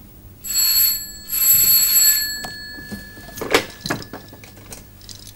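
Desk telephone ringing: two rings in quick succession, followed by a couple of short knocks.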